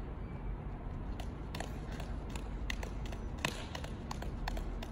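Juggling balls slapping into the hands as five balls are thrown in a shower pattern: a quick, uneven run of sharp catches, about three a second, starting about a second in, over a low steady background rumble.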